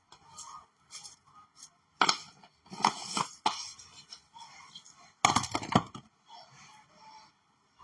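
Spice containers being handled over the frying pan: sharp clicks and knocks in short clusters about two, three and five seconds in.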